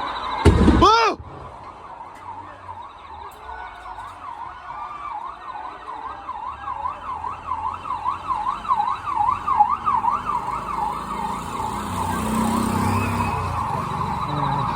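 A loud explosion bangs out about half a second in, during a fire in an apartment building. Then several emergency-vehicle sirens wail over each other, each swinging quickly up and down in pitch.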